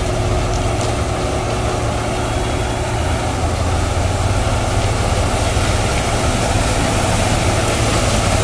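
Case IH Austoft 4000 sugarcane harvester running steadily while cutting cane, its six-cylinder Cummins diesel under load with the chopping and elevator machinery, and a New Holland tractor's engine running alongside. A continuous, even drone with a low hum.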